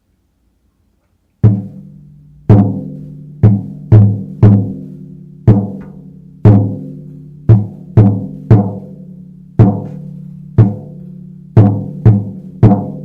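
A drum struck in an uneven rhythm, roughly one to two hits a second, each hit ringing at one low pitch and fading; it starts about a second and a half in after silence.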